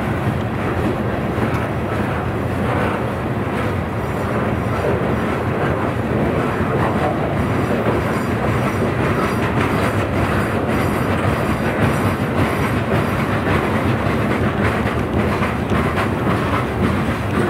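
Train cars rolling past: a steady rumble of wheels on rail, with the wheels clicking over the rail joints.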